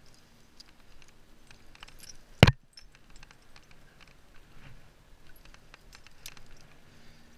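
Climbing gear on a harness rack clinking and rattling in scattered small clicks as a climber moves on rock, with one sharp, loud knock about two and a half seconds in.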